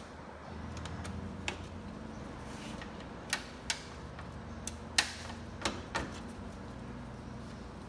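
Plastic push-type bumper retainer clips being pried and popped out of the radiator support with a clip tool: a handful of sharp, irregular plastic clicks and snaps, the loudest about five seconds in, over a faint steady low hum.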